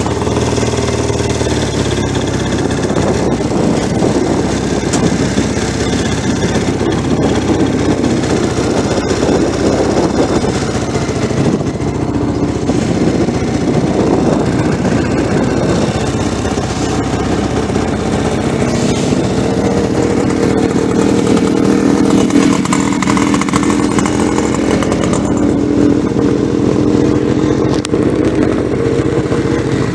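Norton 750 Gus Kuhn café racer's parallel-twin engine running at low speed as the motorcycle is ridden slowly, heard from on board. The engine note is loud and steady, shifting slightly in pitch in the second half.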